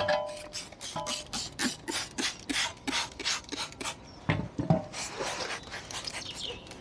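Hand trigger spray bottle squirting degreaser onto a moped's front fork in quick repeated pumps, about five a second, with a couple of dull knocks about two-thirds through and a few more squirts after them.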